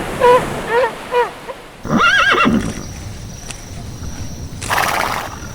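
A horse whinnying: a quavering high neigh about two seconds in, then a short breathy snort near the end. Before it, a run of short repeated animal calls stops about a second and a half in.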